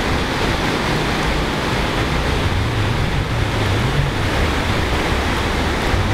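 Steady rushing of river water over a low weir, with wind buffeting the microphone as an uneven low rumble.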